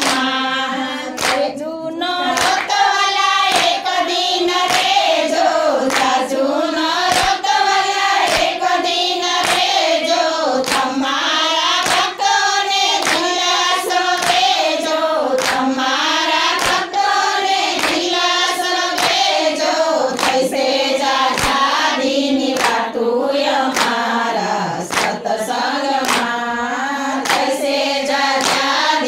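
A group of women singing a Gujarati devotional bhajan together in unison, with steady hand-clapping keeping time throughout.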